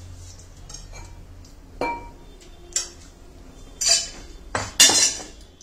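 A steel ladle clinking against a glass bowl of milk: about five sharp clinks with a short ring, the loudest near the end.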